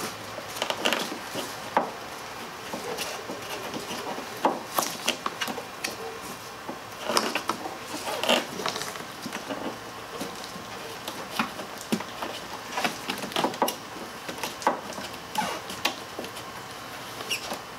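Gloved hands working a fuel hose and plastic parts in a car's engine bay: irregular light clicks, scrapes and rustles.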